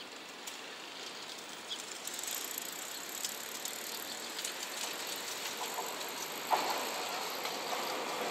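JR West 227 series electric train rolling past slowly: a steady rush of wheels on rail with scattered clicks, swelling about two seconds in, and a heavier clunk about six and a half seconds in.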